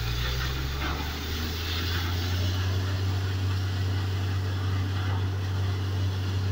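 Truck-mounted borewell drilling rig's engine running with a steady low drone, growing a little louder about two seconds in.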